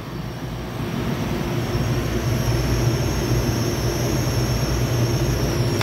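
Stulz commercial air-conditioning unit running: a steady machine hum with a rushing fan noise and a faint high whine, growing a little louder over the first two seconds.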